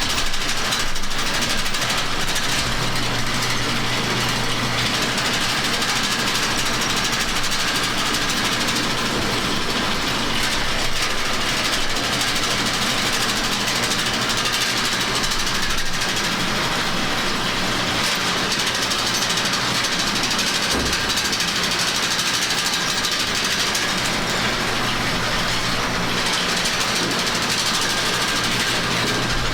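Farm machinery engine running steadily under a constant mechanical clatter, with a low hum that fades in and out.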